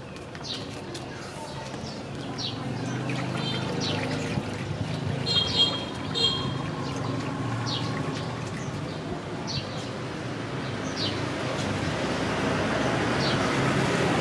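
Water from a tap splashing in a plastic basin as a young monkey is washed, with short high falling chirps repeating every second or so. A broad rushing noise grows louder toward the end.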